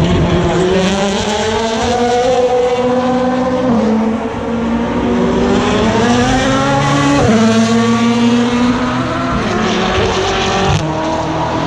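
Race car engines accelerating hard, their pitch climbing through the gears with sharp upshifts about four and seven seconds in, then holding high as the cars pull away.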